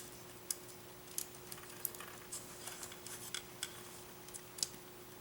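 Scattered light clicks and ticks of small electronic parts and wires being handled and fitted while wiring an RC speed controller, irregular and close together, over a faint steady hum.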